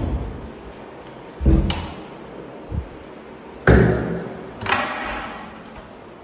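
About four knocks and clunks from a wooden door and its metal lever handle as the door is worked open; the sharpest comes a little past halfway.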